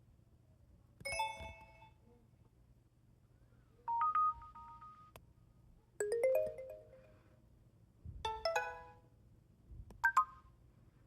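Amazon Fire HD 10 tablet (13th generation) playing its built-in notification tones one after another: five short chimes of a few bright notes each, about two seconds apart, each fading quickly.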